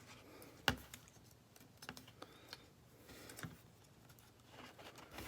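Faint small clicks and taps of a disassembled smartphone's parts being handled and pried at, with one sharp click a little under a second in.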